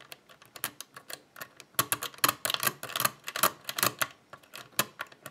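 A steel lock pick working the pin stacks of a Winkhaus euro-cylinder pin-tumbler lock under light tension: a run of quick, sharp metallic clicks and ticks. The clicks are scattered at first, crowd together through the middle, then thin out again.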